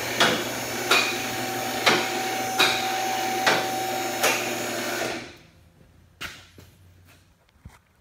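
Two-post vehicle lift raising: its electric hydraulic pump motor runs steadily while the carriage safety locks click past each notch, roughly once a second. The motor stops about five seconds in, leaving a few faint knocks.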